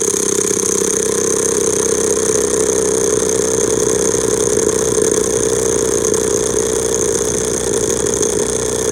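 Snap-on impact wrench hammering without a break on a seized axle bolt that has sat for a long time, failing to break it loose.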